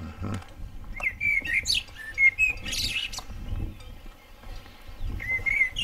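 Small birds chirping: a scatter of short, high whistled notes, with a brief noisy burst a little before the midpoint and a low rumble underneath.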